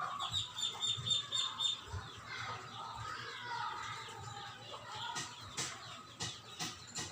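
Chickens clucking with small birds chirping, including a quick run of high chirps in the first two seconds. A few sharp clicks come near the end.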